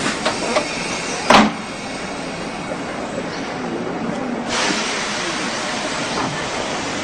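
Electric commuter train pulling away from the platform with a steady rolling rumble. A single sharp knock comes about a second in, and the noise grows louder and hissier about four and a half seconds in.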